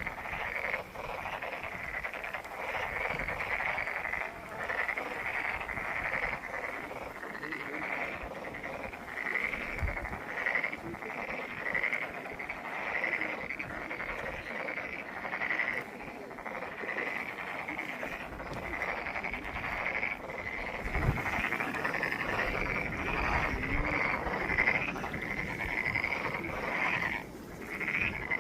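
A chorus of many frogs calling from a pond without pause, their short calls repeating and overlapping.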